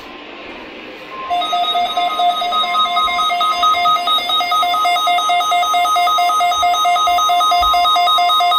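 NOAA Weather Radio 1050 Hz warning alarm tone: a steady single tone starting about a second in. Moments later a louder electronic alarm joins it, rapidly alternating between two pitches.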